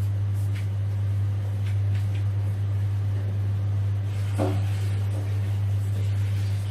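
A steady low hum, with a few faint ticks and one soft knock about four and a half seconds in.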